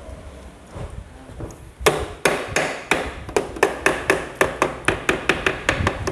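A hammer tapping on metal engine parts, a steady run of sharp ringing taps at about four a second that starts about two seconds in and speeds up slightly.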